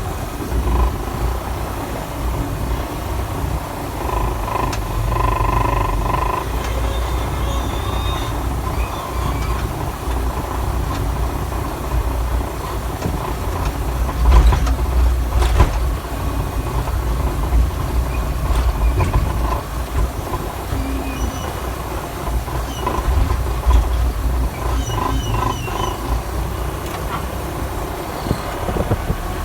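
Skid-steer loader working, its diesel engine running with a steady heavy low rumble. Short high squeaks come and go, and there are a couple of sharp metallic clanks about halfway through.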